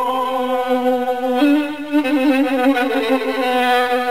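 Solo violin answering the singer between vocal lines of a Persian song in the Bayat-e Tehran mode. It holds long notes with vibrato, then starts a new wavering, ornamented phrase about a second and a half in.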